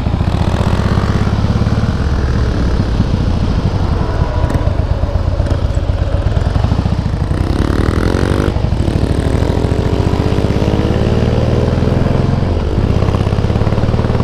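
A Harley-Davidson Softail Heritage's air-cooled V-twin running through Screamin' Eagle exhausts while being ridden, a steady loud pulsing note. The pitch climbs a couple of times in the middle.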